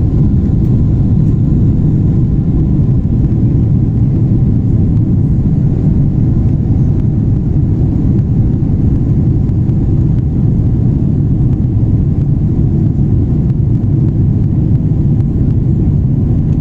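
Boeing 777 jet engines and airflow heard from inside the aircraft during takeoff or climb: a loud, steady deep rumble with a faint steady tone above it.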